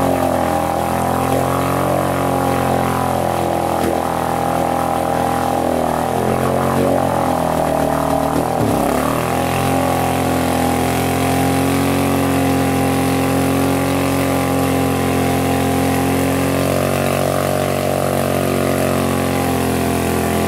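ATV engine held at high, steady revs while the quad sits stuck nose-down in deep mud, its revs dipping briefly about halfway through before climbing back.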